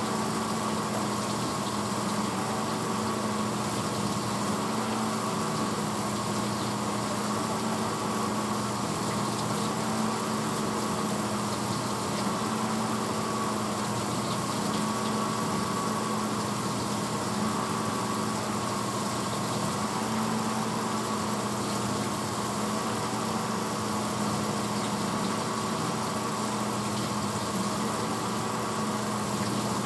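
1986 Hotpoint Potwasher dishwasher running mid-cycle: the wash pump motor hums steadily while water sprays inside the tub.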